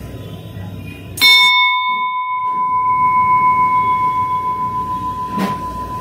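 Large hanging temple bell struck once by its clapper about a second in, ringing with a clear, sustained tone and higher overtones that slowly fade. A second, lighter knock of the clapper comes near the end.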